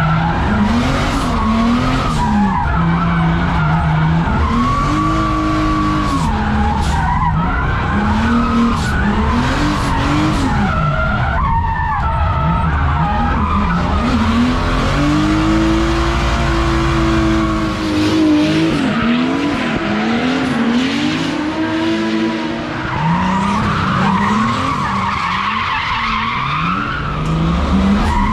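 BMW E46 drift car heard from inside the cabin, its engine revving up and down over and over while the tyres skid and squeal through drifted corners.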